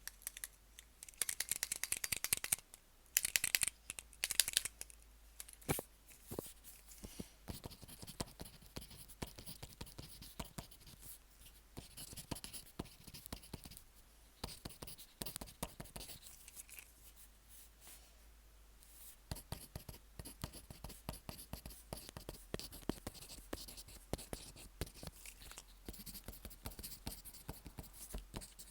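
Pen writing on paper, picked up by a microphone fixed to the paper: scratchy strokes, with two louder stretches in the first five seconds, then a run of quieter short strokes and taps.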